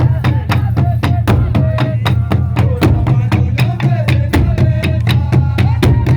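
Music with a steady, fast percussive beat over a strong, constant bass line and sustained melodic notes.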